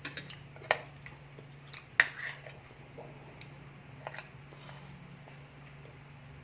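A person chewing and biting food, with a handful of sharp wet mouth clicks and smacks, the loudest about two seconds in; it quietens after about four seconds.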